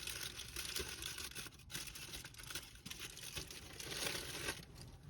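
Crinkling, rustling noise with many small clicks, like paper or packaging being handled.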